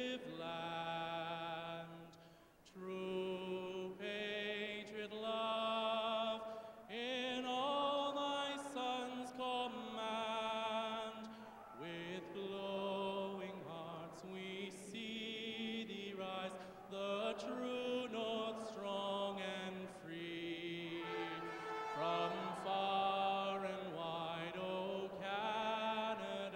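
A man singing the national anthem solo into a microphone, in long held notes that move phrase by phrase, with a short breath pause about two and a half seconds in.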